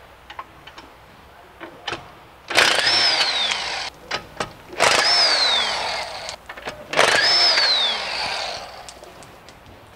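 Bosch half-inch electric impact wrench run in three bursts of about a second and a half each, hammering loose the lower ball joint bolts. Its motor whine falls in pitch as each burst ends. A few light clicks from a hand ratchet come first.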